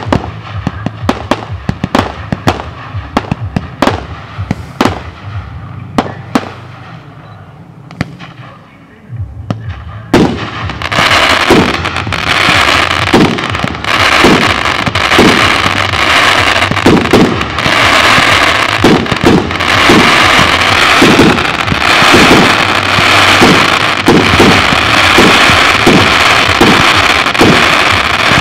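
Aerial fireworks display. For the first several seconds there is a rapid, irregular series of sharp bangs from shells bursting. About ten seconds in, a dense continuous hiss sets in, under a steady run of low thumps about one or two a second as a battery fires.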